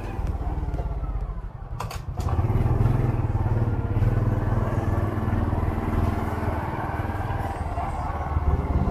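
Motorcycle engine running while riding, easing off briefly about a second and a half in and then louder again.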